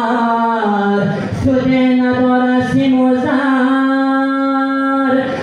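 A man singing a Persian-language song through a microphone and PA speaker, unaccompanied, drawing out long held notes that step down and back up in pitch.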